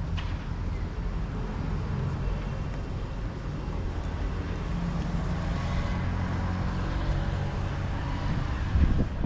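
Steady outdoor rumble of passing road traffic mixed with wind on the microphone, with a short thump near the end.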